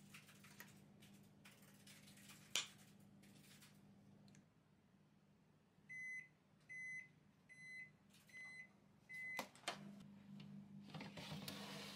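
Faint clicks of a plastic plunger cookie cutter, one of them sharp and loud. Then a Panasonic Bistro oven-microwave sounds five short high beeps about 0.8 s apart, signalling that the 170 °C oven bake has finished, followed by a click and a brief rustle as the baking tray comes out.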